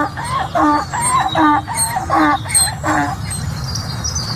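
Donkey braying: a run of alternating hee-haw notes, which stops about three seconds in.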